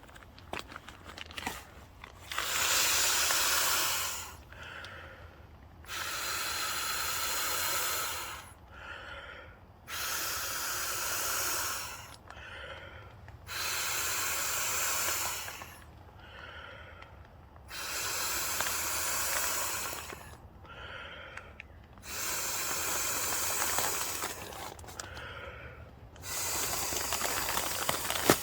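Mouth-inflating a Trekology UL50 ultralight sleeping mat: seven long breaths blown into its valve, each about two seconds, with a quieter breath drawn in between.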